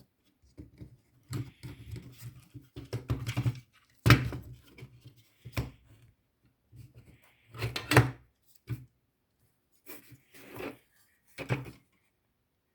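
Irregular handling noises of small plastic parts: clicks, knocks and rubbing in short clusters, with two sharper knocks about four and eight seconds in. They are consistent with the casing of a Siemens S7-1200 PLC being worked open.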